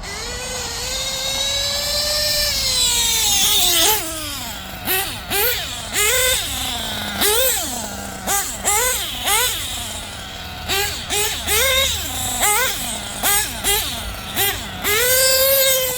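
Small LRP nitro engine of an RC model being revved, its exhaust leak newly fixed: one long high-pitched rev that rises and drops off about four seconds in, then a run of short throttle blips, then another held rev near the end.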